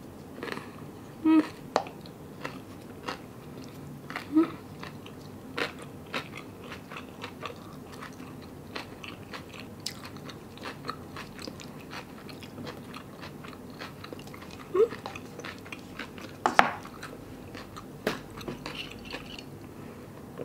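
Close-miked chewing of a mouthful of kimbap and kimchi: wet mouth smacks and many small scattered clicks, with a few louder smacks now and then.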